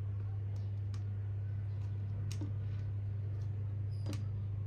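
Small plastic toy bricks clicking as they are handled and pressed together, three sharp clicks spread a second or more apart, over a steady low hum.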